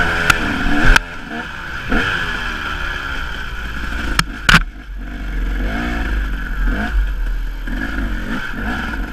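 Enduro dirt bike engine revving up and down in short bursts of throttle while riding a rough singletrack, easing off about a second in. Several sharp knocks cut through, two in the first second and two more about four and a half seconds in.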